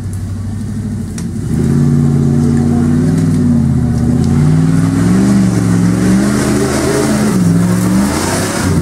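Off-road 4x4's engine revving hard, its pitch climbing about a second and a half in and then rising and falling repeatedly.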